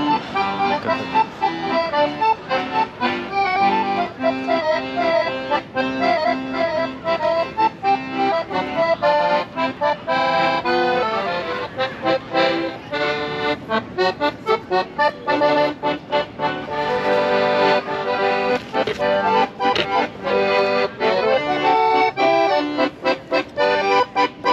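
Instrumental music: a melody of short notes that change quickly, played over a steady accompaniment.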